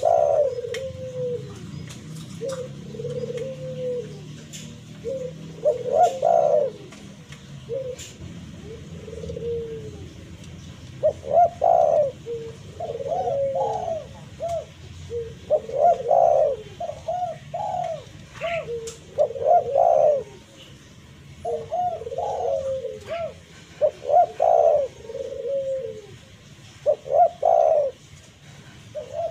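Spotted dove (tekukur) cooing in repeated phrases of several low, soft notes, one phrase after another with short gaps.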